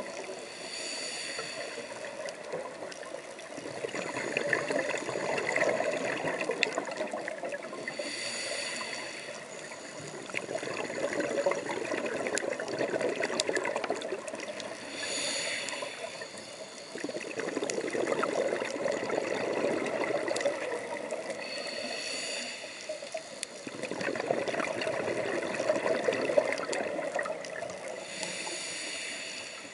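Scuba regulator breathing underwater, five breaths in a regular cycle about seven seconds apart. Each breath is a short hissing inhale with a whistling tone, followed by a few seconds of bubbling exhaust bubbles. Faint scattered clicks run underneath.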